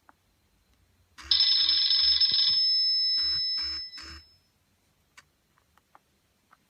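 Nokia 6070 mobile phone ringtone played through the phone's small speaker. It starts about a second in with a high, bright ring of steady tones lasting about a second and a half, then three short repeated pulses, and stops about four seconds in. A few faint clicks follow.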